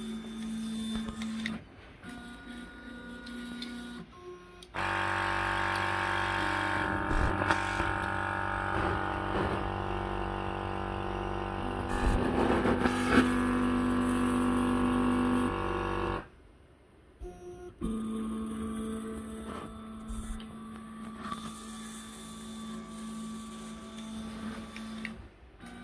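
Index PnP pick-and-place machine running: its stepper motors whine at steady pitches as the nozzle head travels between the component tape and the camera. A louder stretch of steady hum and whine, stacked at several pitches, starts about five seconds in and cuts off about sixteen seconds in.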